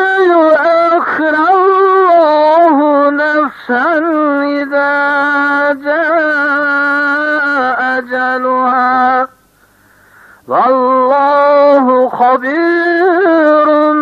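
Melodic Quran recitation: one voice holding long, ornamented notes, with short breaths and a pause of about a second about two-thirds of the way through before it resumes.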